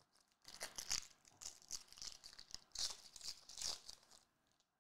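Foil wrapper of a Topps Chrome trading card pack torn open and crinkled by hand, a crackling rustle that starts about half a second in and stops a little after four seconds.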